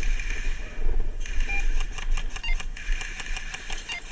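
Airsoft guns firing in rapid runs of sharp clicks, thickest over a second or so near the middle, over a steady low rumble of wind and handling on the microphone.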